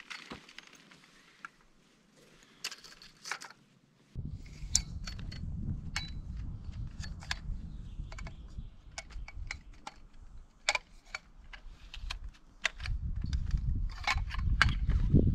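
Sections of a metal tent pole clicking and clinking against each other as they are handled and pulled apart. A low rumble comes in about four seconds in and stays under the clinks.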